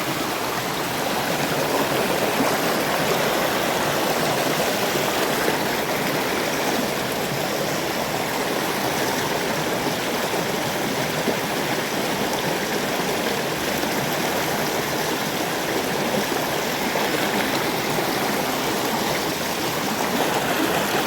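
River water flowing over stones, a steady rushing babble.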